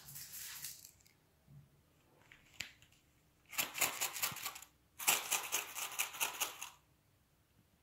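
Coins jingled together in a hand in bursts of rapid metallic clinking: a short burst at the start, then two longer ones from about three and a half seconds in, with a pause between.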